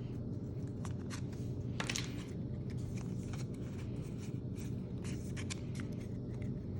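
Pokémon trading cards being handled and slid over one another: a run of short, light swishes and scrapes over a steady low hum.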